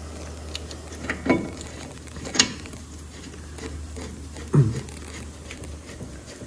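A few sharp metallic clinks and light handling noises as a lug nut is fitted onto a wheel stud to hold a new front brake rotor against the hub, over a steady low hum.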